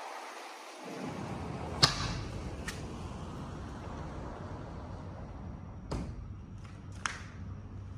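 A door shutting with one sharp knock about two seconds in, followed by a steady low indoor room hum and a few lighter clicks.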